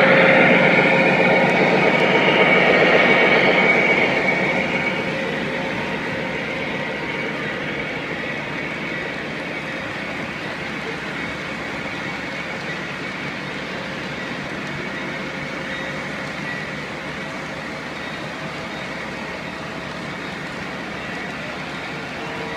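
Model freight train running past on its track: the locomotives' sound is loudest over the first four or five seconds and fades as they pass, then the freight cars' wheels give a steady rolling rumble on the rails.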